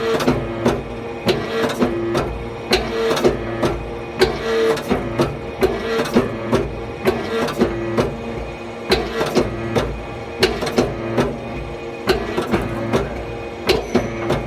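Hydraulic forging press at work: a steady running hum with rapid, irregular sharp knocks, two or three a second.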